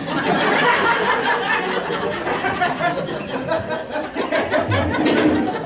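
Audience laughing, starting abruptly and holding steady for several seconds, in reaction to a punchline.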